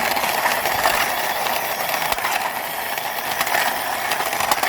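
Toy Lexus car being pushed along by hand, its wheels giving a steady, fast ratcheting whir.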